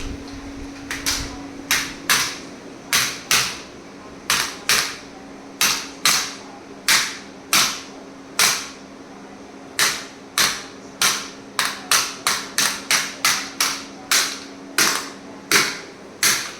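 A rapid, irregular series of about thirty sharp cracks, each ringing briefly, over a steady low hum.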